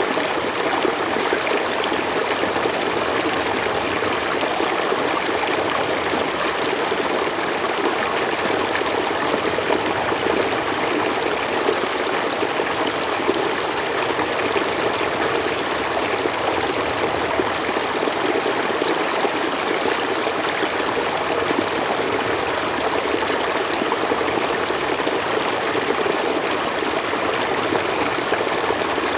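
A stream or small river flowing over rocks, a steady rushing with small trickling splashes, even throughout.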